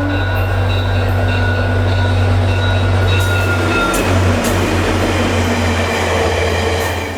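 Diesel-hauled train passing close by: a steady locomotive engine drone under a rising rush of wheels on rail, fading near the end.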